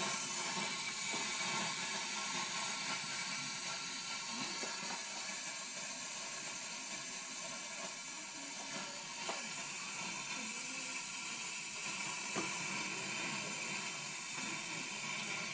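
De'Longhi ECO310 espresso machine hissing steadily as steam escapes, with its steam knob turned open. Two faint ticks come late on.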